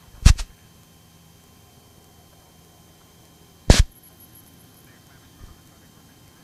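Two brief, loud bursts of static on the Cessna 172's headset/intercom audio, one just after the start and one just under four seconds in, over a faint steady engine hum.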